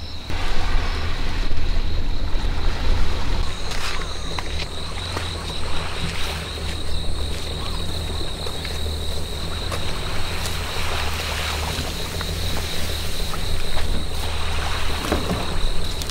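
Wind buffeting the microphone with a steady low rumble, over a continuous high-pitched insect drone. A few brief rustles and scrapes come as a plastic kayak is dragged through tall grass.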